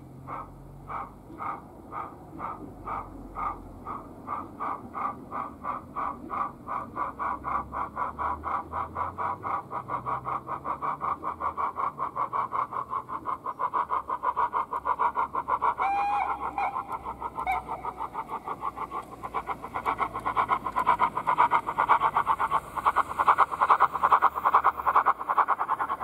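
Sound-fitted O gauge model of an A1X Terrier steam tank engine chuffing. The beats start at about two a second and speed up into a rapid, louder beat as the train gets going.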